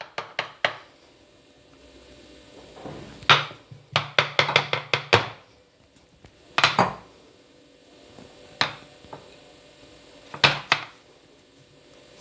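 Batter being spread in a baking pan with a utensil, heard as clusters of sharp taps and knocks against the pan, including a run of quick taps about four seconds in, with quiet gaps between.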